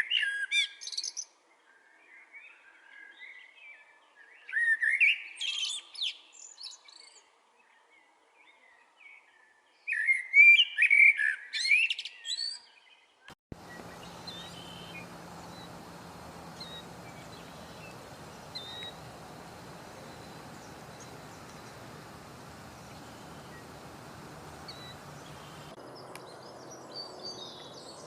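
Songbirds singing: three loud bursts of rapid, warbling song with quiet gaps between them. About halfway through, the sound cuts abruptly to a steady outdoor hiss with only faint, scattered chirps. Chirping picks up again near the end.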